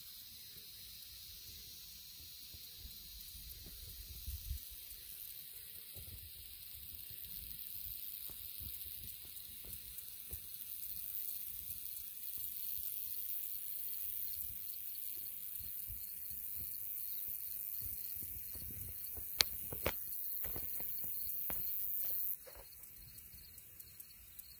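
Distant high-pitched whine of a Torpedo .19 glow engine at full power on a free-flight model climbing away. The whine grows gradually louder, then stops abruptly near the end as the engine run is cut by its pinch-off timer. A few sharp clicks come shortly before the cut.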